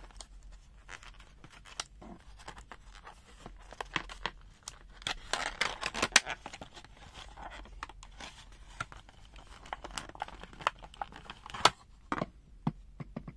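Stiff clear plastic blister packaging being pried open by hand, crackling and snapping irregularly, with a dense run of sharp cracks about halfway through and another loud snap near the end.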